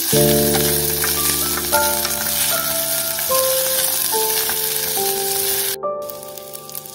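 Rice sizzling in a metal pot as it is stirred and toasted with a wooden spoon, over background music, a simple melody of held notes. The sizzling cuts off sharply about six seconds in, leaving only the music.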